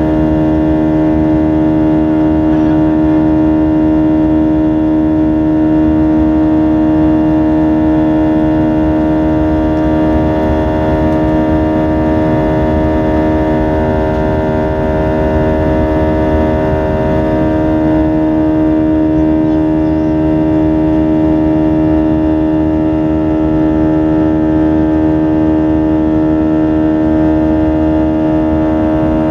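Airbus A320's jet engines heard from inside the passenger cabin while the airliner climbs after takeoff: a loud, steady drone with several unchanging tones running through it.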